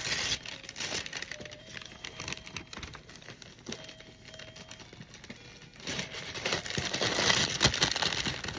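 Paper crinkling and rustling as a present is unwrapped, with some tearing. It gets louder about two thirds of the way in.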